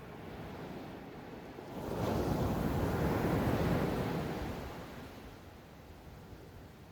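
Ocean wave breaking on the beach: a rush of surf that swells suddenly about two seconds in, holds for a couple of seconds, then fades back to the low wash of the shore, with some wind on the microphone.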